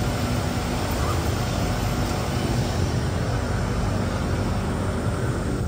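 Steady hum and noise inside an Alstom C830 metro train car standing at a station with its doors open.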